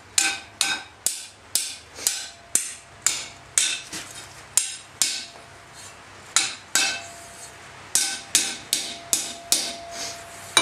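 Blacksmith's hand hammer striking a glowing iron bar on an anvil, about two blows a second with a brief pause a little past the middle, each blow ringing. The bar is being forged into a strap hinge.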